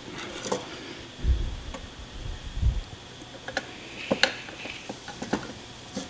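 Metal parts and screws being handled during bench assembly: a few dull bumps in the first half, then scattered sharp clicks and taps of small metal pieces.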